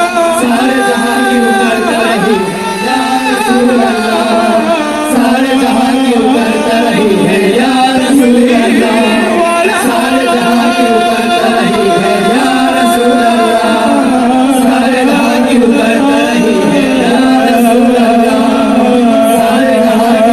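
Islamic qawwali song: voices singing with musical accompaniment, held notes and melodic runs throughout.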